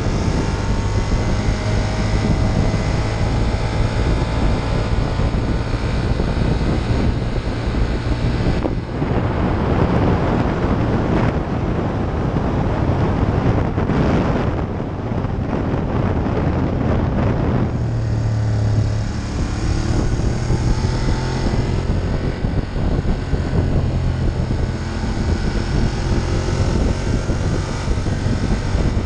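Ducati Monster 1200's L-twin engine running under way, heard from the rider's seat under a heavy rush of wind and road noise. The rushing is strongest through the middle, and the engine note climbs a few times after it as the throttle opens.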